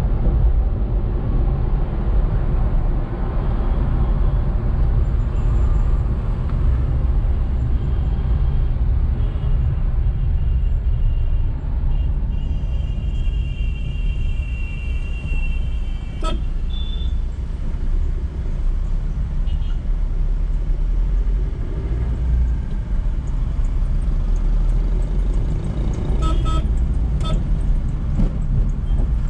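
Steady low rumble of road and engine noise from a car driving in slow city traffic. Vehicle horns honk for a few seconds midway, and a few sharp clicks come near the end.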